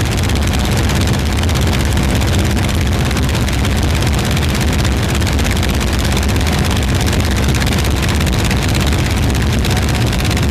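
A light aircraft's engine and propeller running steadily, heard from on board, with rushing air noise; loud and unchanging throughout.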